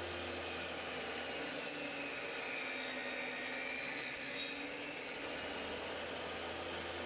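Portable table saw running, its blade cutting a half-inch-deep groove along a wooden board in one of several passes. A steady whine whose tone changes for a few seconds in the middle.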